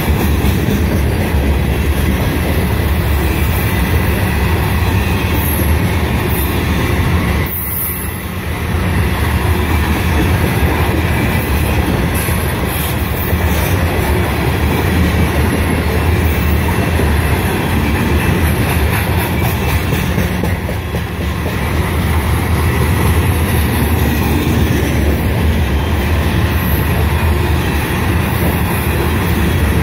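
Freight train of CSX covered hopper cars rolling past at restricted speed: a steady rumble and clatter of steel wheels on the rails, dipping briefly about eight seconds in and again after about twenty seconds.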